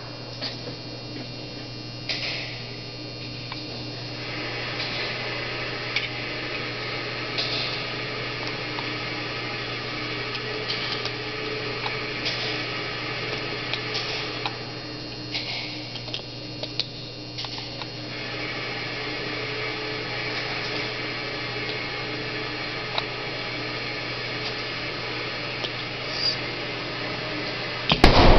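Steady low electrical hum with a hiss that drops out twice and scattered small clicks of handling. A single gunshot cracks right at the end.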